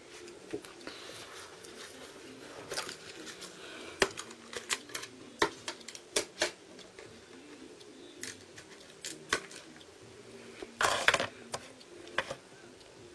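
Sheets of paper being handled and pages turned, with scattered light clicks and taps and a short, louder paper rustle near the end.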